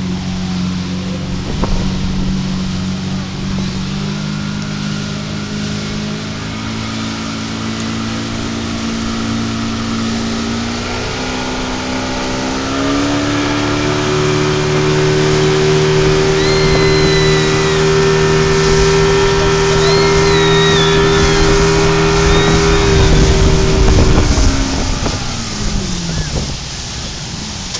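Speedboat engine running under way with a rush of water and wind. About halfway through, the engine speeds up over a couple of seconds to a higher steady pitch, then throttles back near the end.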